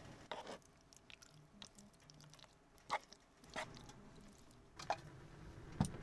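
Light kitchen handling sounds as cookware and food are worked: a handful of short, separate clicks and knocks a second or so apart, the sharpest near the end.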